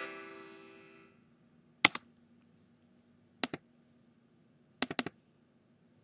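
The last chord of a GarageBand ringtone composition rings out and fades away over about a second. Then come short, sharp computer mouse clicks: a pair, another pair, and a quick triple near the end.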